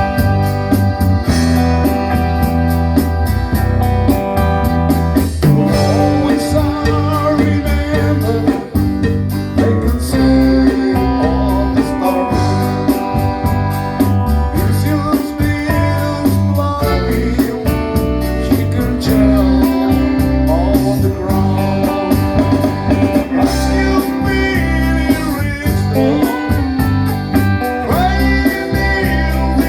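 A band playing a song live: guitar, bass and a steady drum beat, with a voice singing the melody.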